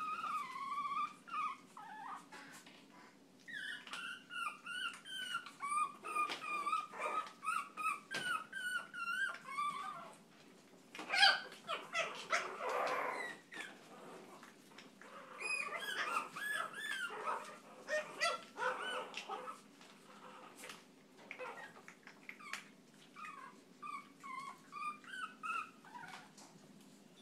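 Chihuahua puppies yipping and whining in high-pitched bouts as they play, with brief pauses between the bouts.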